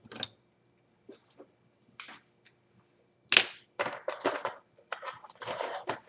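Small hand tools and parts being handled on a workbench: scattered light clicks and rattles, with one sharp click a little over three seconds in and a busier clatter over the last couple of seconds.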